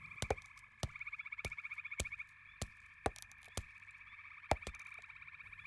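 Frogs and insects calling: a faint, steady high chirring with sharp clicks at irregular intervals of roughly half a second.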